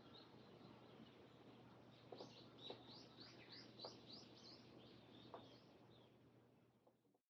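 Small bird chirping in quick high notes, several a second, over a faint steady hum, with a few soft clicks; the sound fades out near the end.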